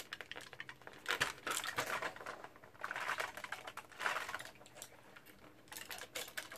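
Cardboard and plastic tray of a chocolate advent calendar rustling and crackling in irregular clicks as a stuck chocolate is worked out of its compartment.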